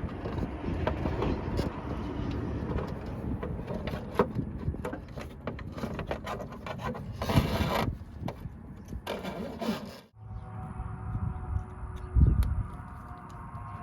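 Rubbing and scraping noises with many scattered clicks. About ten seconds in they cut off abruptly and a steadier hum with a few held tones takes over, with a thump shortly after.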